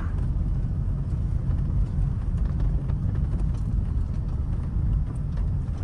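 Steady low rumble of a Toyota car driving slowly along an unpaved dirt track, heard from inside the cabin: tyre and road noise with a few faint clicks.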